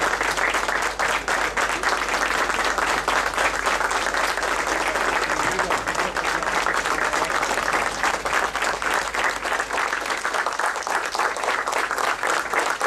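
A crowd clapping steadily: many hands applauding at once without a break.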